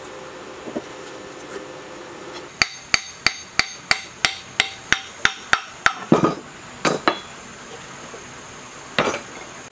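Hammer blows on metal at the flywheel hub of a five-horsepower diesel engine. About eleven sharp, ringing strikes come at roughly three a second, followed by a few heavier, scraping clanks.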